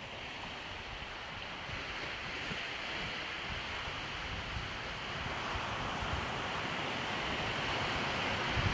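Sea waves washing onto a beach: a steady rushing that slowly grows louder. Wind buffets the microphone with low, uneven rumbles that are strongest near the end.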